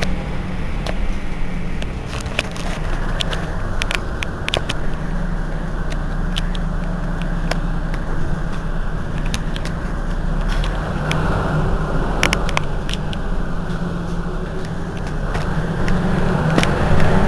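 Mercedes-Benz Citaro city bus engine idling at a standstill, a steady low rumble with scattered faint clicks. It grows louder near the end.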